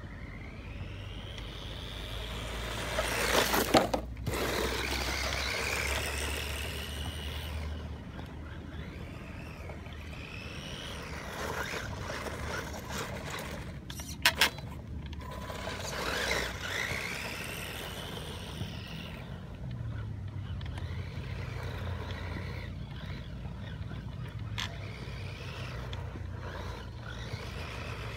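Electric motor and gear drive of a Tamiya MF-01X radio-controlled car whining, rising and falling in pitch as the car speeds up and slows across dirt. Two sharp knocks, about four seconds in and about fourteen seconds in.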